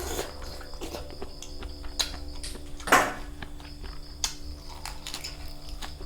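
Eating sounds: scattered clicks and knocks of shells and utensils, with one louder crunchy noise about three seconds in, over a steady high chirr of crickets.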